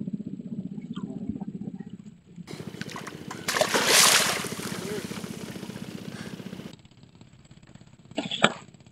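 A hooked giant snakehead (toman) thrashing at the surface right beside a wooden boat: a loud splash about four seconds in, followed by a couple of seconds of lighter sloshing.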